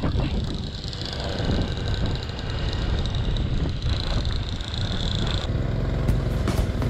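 Small motor vehicle engines running on the move, mixed with wind rushing over the microphone as a steady low rumble; the sound changes character about five and a half seconds in.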